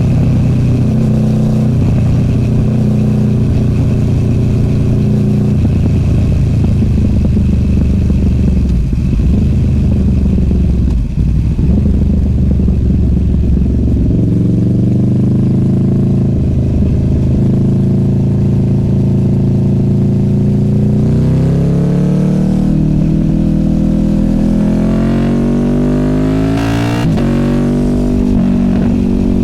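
Honda VFR800F's V4 VTEC engine through an SC Project Conic exhaust, heard on the move. It holds a steady note for about the first fourteen seconds. The pitch then climbs as the bike accelerates, and climbs again from about twenty-one seconds in, with a short break near the end.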